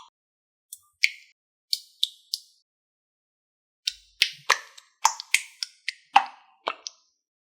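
Slime being pressed and mixed by hand, giving sharp wet pops and clicks as trapped air bursts: a few spaced pops, then a quicker run of about ten near the end.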